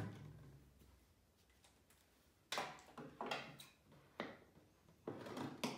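Scissors cutting into an empty clear plastic 2-liter bottle: a series of irregular snips and crackles of the plastic, starting about two and a half seconds in.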